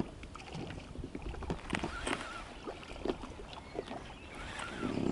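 Water lapping against an inflatable boat, with scattered small knocks and splashes.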